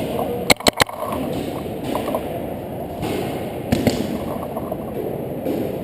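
Paintball marker firing a quick burst of three sharp shots about half a second in, then another shot a little past the middle, over a steady background din of play.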